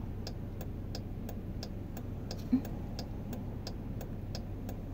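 Car turn-signal indicator clicking steadily, about three clicks a second in alternating tick and tock, over the low hum of the idling car in the cabin. One brief low thump about halfway through.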